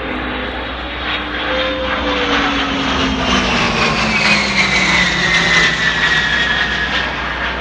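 Four-engine E-3 Sentry AWACS jet, with its TF33 turbofans, passing close by in a flyby. The engine noise swells and its whine falls steadily in pitch as the aircraft goes past.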